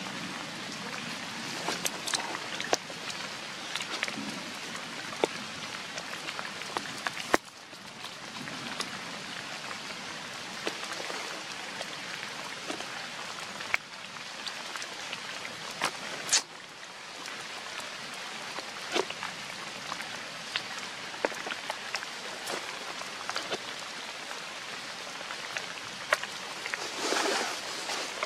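Steady rain falling, with many scattered drips pattering on wet ground and puddles. There is a brief louder rush near the end.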